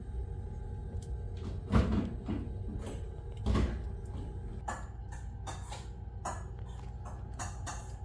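Handling noise: two dull thumps about two and three and a half seconds in, then a run of short, sharp knocks and crackles, over a steady low rumble.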